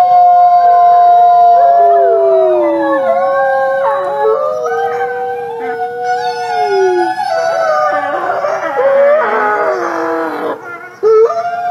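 Grey wolves howling in chorus: a long steady howl slides down in pitch while other voices join at different pitches. About eight seconds in the calls turn broken and wavering with yips, then a new long howl begins near the end.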